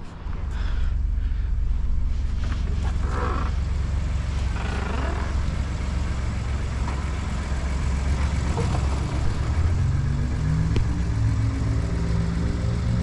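Pickup truck engine running steadily after starting, its pitch rising near the end.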